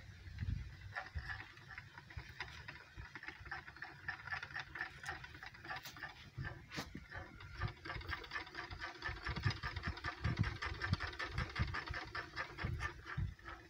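Hardwood upright spinning wheel, a Jan Lobs wheel with a double drive band, running: the drive wheel turns the flyer with a rapid, even clicking rattle and dull low knocks, getting somewhat louder in the second half.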